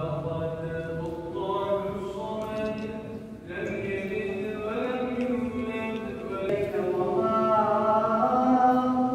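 A man's voice chanting a slow, melodic Islamic recitation in the mosque's prayer hall, drawing out long wavering notes. The phrase breaks off briefly about three and a half seconds in, and a louder, higher phrase rises near the end.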